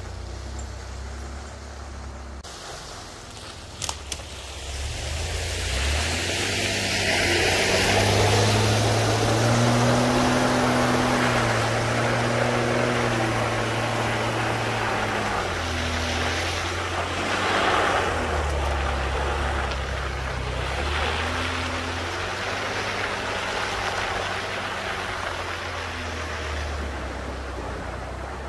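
Nissan truck engine revving and easing off as it drives through mud puddles, with a steady rush of water and mud spraying. The engine picks up a few seconds in, holds, drops back and rises again. Two sharp knocks come about four seconds in.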